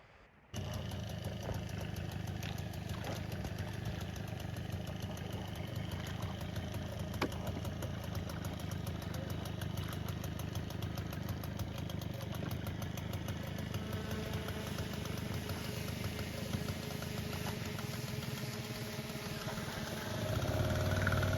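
A 5 hp outboard motor running steadily, cutting in suddenly about half a second in and getting louder near the end.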